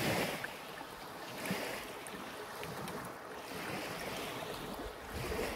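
Small lake waves washing on a pebble shore, rising and falling every second or two, with wind on the microphone.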